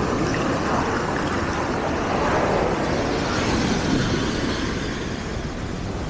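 Black Sea surf breaking and washing up a pebble beach: a steady rushing of waves and foam, dipping a little near the end.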